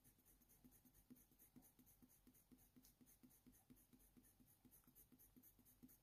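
Very faint scratching of a Faber-Castell Polychromos colour pencil on hot-press watercolour paper: quick, light-pressure strokes, about three to four a second, laying orange over the drawing.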